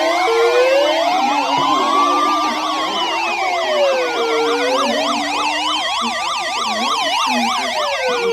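Several emergency sirens sounding at once as the alert ahead of a severe thunderstorm warning. A slow wail rises and falls about every four seconds over fast yelping warbles, and a steady lower tone stops about two-thirds of the way through.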